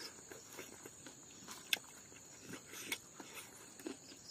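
Close-up eating sounds: soft scattered clicks and lip smacks of chewing a mouthful of cooked silkworm pupae and rice, with one sharper click about a second and a half in. A steady high insect whine, like crickets, runs behind.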